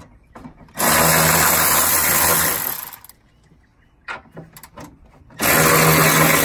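Cordless electric ratchet spinning out two bolts that hold down a hybrid battery pack: two runs of a steady motor buzz, one starting about a second in and lasting about two seconds, the second starting near the end, with a few clicks between.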